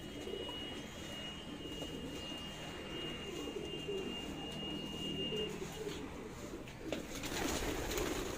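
Domestic pigeons cooing in low, repeated warbling coos. A louder burst of noise comes in near the end.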